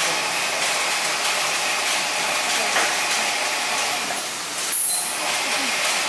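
Automated pot-handling machine running, its gantry arm lifting a row of potted plants and setting them down, a steady mechanical clatter with a short, high hiss just before five seconds in.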